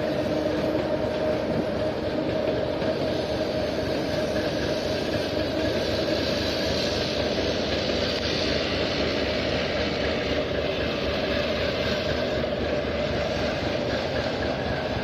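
ChME3 diesel shunting locomotive moving a rake of passenger coaches, its engine running steadily under the rolling noise of the train.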